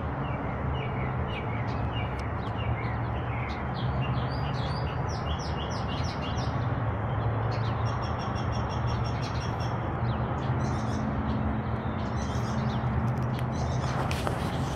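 Songbirds chirping and trilling in a dawn chorus, with quick descending chirps early on and a rapid trill about halfway through, over a steady low hum. A brief rustle near the end.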